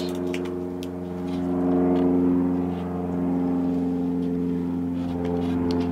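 An engine running steadily at one speed, growing a little louder about two seconds in. A few light knocks come from a plywood panel being handled.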